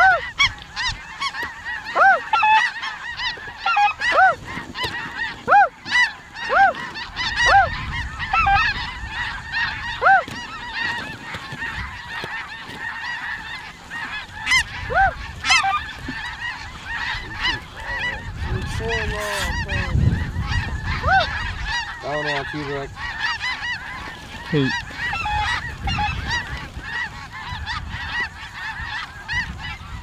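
Snow geese calling: a steady din of high honks from a large flock, with louder single honks about every two seconds. A low wind rumble on the microphone comes in briefly about two-thirds through.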